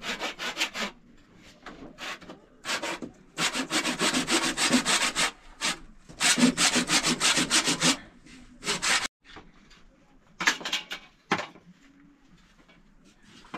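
Fast rhythmic scraping or rubbing strokes, about eight a second, in several bursts of up to two seconds with short pauses between.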